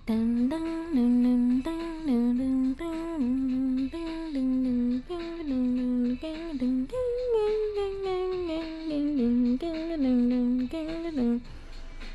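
A woman's voice humming a wordless vocal line, unaccompanied, stepping up and down between two low notes in short repeated phrases. About seven seconds in it slides slowly down in pitch, then picks the phrases up again and stops just before the end.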